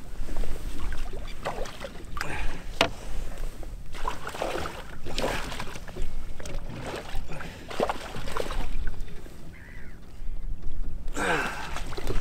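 Irregular knocks, clicks and scrapes of handling in a small fishing boat while a netted pike is dealt with in the landing net, with one sharp knock about three seconds in.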